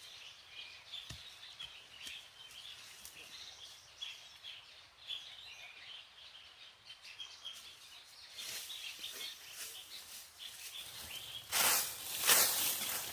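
Rural outdoor ambience with small birds chirping steadily. Near the end comes a loud rustle and crunch of handled vegetation or movement through it.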